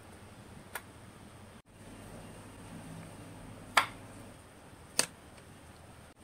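Three sharp wooden clicks as the parts of a hand-carved cypress-wood model car are handled, its tailgate and door knocking against the body; the middle click is the loudest. A faint steady hiss lies underneath.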